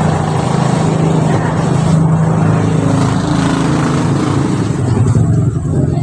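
An engine running steadily: a loud, even, low drone that does not change.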